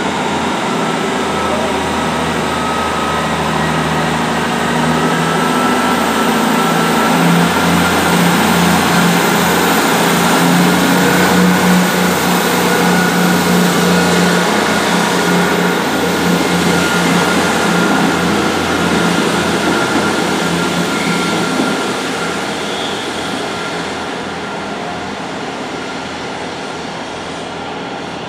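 A Class 158 diesel multiple unit pulling away under power, its diesel engine note with a steady high whine over it. The sound is loudest partway through, then fades over the last few seconds as the train moves off.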